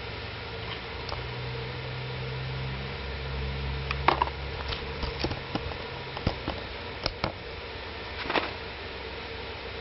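Several sharp clicks and knocks, like objects being handled, over a steady hiss and a low rumble that fades out about six seconds in; no alarm beeping.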